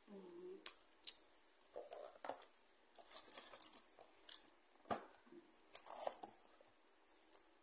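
Paper burger wrapper and cardboard takeout box rustling and crinkling as they are handled, in several short bursts with a few sharp clicks; the longest, loudest rustle comes about three to four seconds in.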